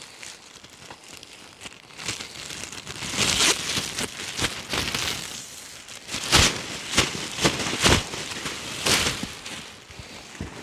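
Crinkly orange plastic sheeting being shaken out and spread, a run of loud crackles and rustles that starts about two seconds in.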